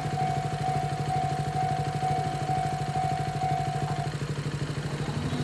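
Japanese railway level-crossing alarm ringing its repeating electronic tone, about two rings a second, then stopping about four seconds in as the crossing clears. A steady low engine-like hum runs underneath throughout.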